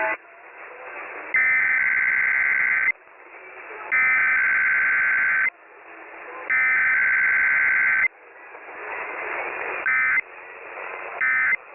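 Emergency Alert System SAME header: three digital data bursts of about a second and a half each, a harsh two-tone warble, with a hiss that swells in the gaps between them. Near the end come two much shorter bursts of the same warble.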